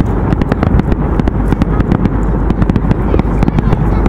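Aerial firework shells bursting in a dense, rapid run of bangs and crackles that goes on without a break.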